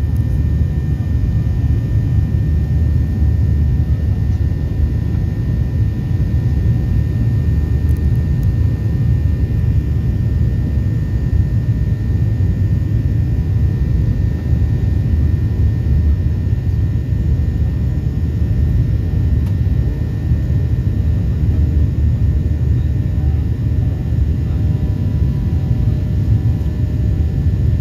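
Steady low rumble of a Ryanair Boeing 737's jet engines and airflow heard inside the cabin during the climb after takeoff, with a few faint steady whining tones above it.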